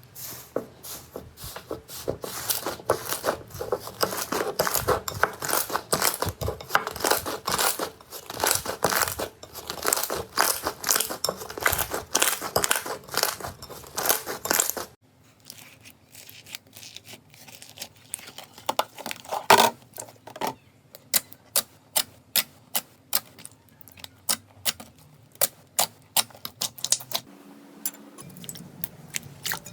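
Slime being worked, crackling with dense, rapid clicks; after about fifteen seconds it changes abruptly to sparser, separate pops and clicks.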